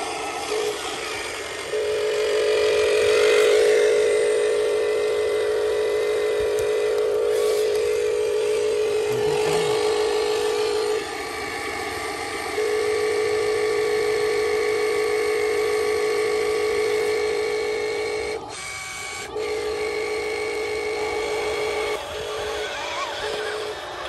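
Huina radio-controlled dump truck's electric drive motor and gearbox whining steadily as it drives, in long runs broken by two short pauses, about halfway through and again in the later part.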